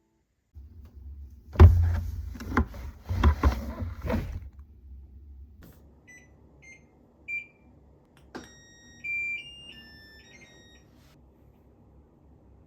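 Household handling: knocks and clatter for a few seconds, over a low hum. Then a scattered run of short electronic beeps at several pitches, like an appliance's control panel being pressed.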